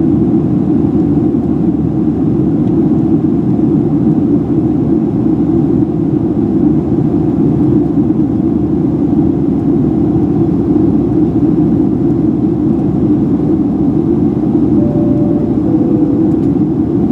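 Steady cabin noise of a Boeing 737-700 in its climb: the constant rumble of engines and airflow. Near the end comes a two-tone high-low cabin chime, the signal that comes just before the announcement of passing 10,000 feet.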